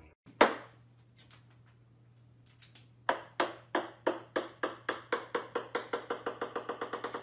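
A small hard ball bouncing on a wooden floor: one sharp hit about half a second in, a few light ticks, then from about three seconds in a run of bounces that come faster and faster and grow softer as the ball settles.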